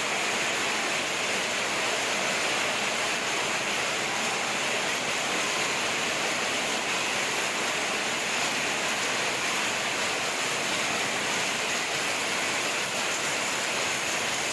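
Rain falling steadily, an even rushing hiss that holds the same level throughout.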